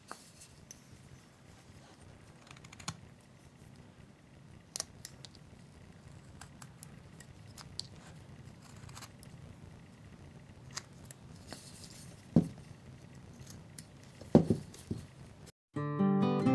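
Small carving knife cutting and scraping wood, a run of faint clicks and scrapes, with two louder knocks shortly before the end. Strummed acoustic guitar music starts in the last second.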